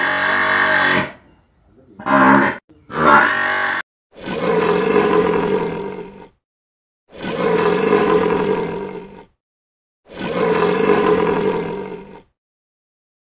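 Short calls from African buffalo in the first few seconds, then an African lion giving three long drawn-out roars of about two seconds each, with brief silences between them.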